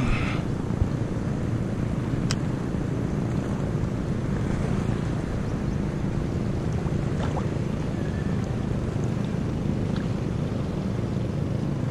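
Steady wind noise on the microphone over choppy sea water lapping at the shore.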